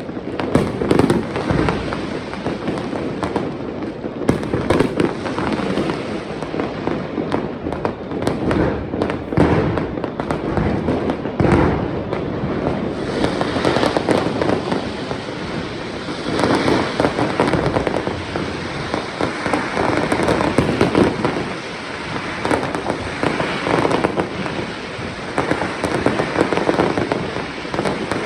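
New Year fireworks going off in a dense, continuous barrage of overlapping bangs and crackling, swelling louder several times.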